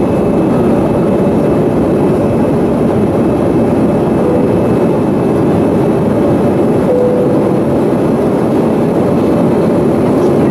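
Steady cabin noise of an easyJet Airbus A320-family airliner in flight: jet engines and rushing airflow heard from a window seat over the wing, a deep even rumble with a faint steady hum.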